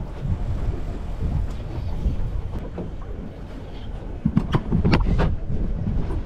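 Low, steady wind rumble on the microphone aboard an open boat on the water, with a handful of sharp knocks about four to five seconds in, the loudest moments.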